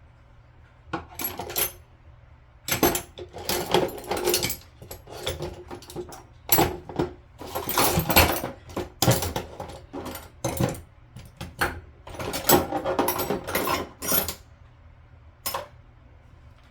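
Hand tools working on a Delta faucet's parts during disassembly: irregular bursts of scraping, grinding and clicking of tool against the fittings, starting and stopping over and over.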